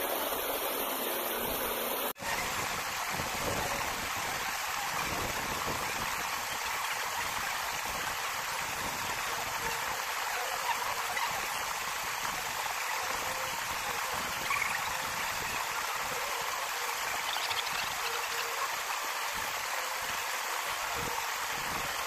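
Steady rushing of stream water flowing over rocks, picked up close to the water's surface, with a brief dropout about two seconds in.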